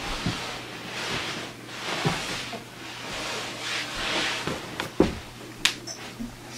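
Rustling of clothes sliding on carpet in slow swells as a person writhes and rolls on the floor, with a few sharp knocks about five seconds in.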